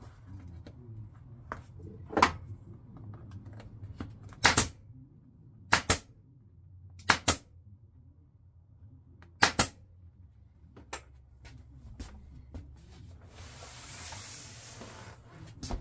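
Pneumatic upholstery stapler firing staples through a vinyl seat cover into a plastic golf-cart seat base: about eight or nine sharp snaps spread over several seconds, several in quick pairs. A rustling scrape follows near the end.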